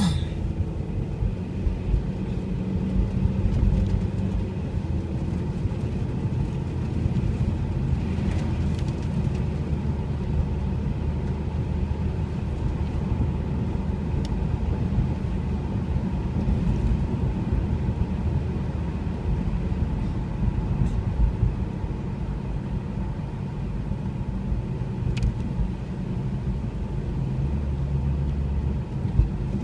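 Car engine and tyre noise heard from inside the cabin while driving: a steady low rumble, with a few faint ticks.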